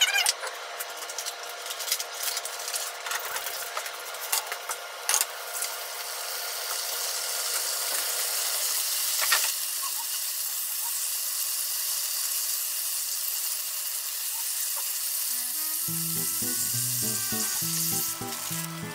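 Sliced food frying in a nonstick pan: a steady sizzle that grows louder about six seconds in, with a few utensil clicks and knocks at first. Background music comes in near the end.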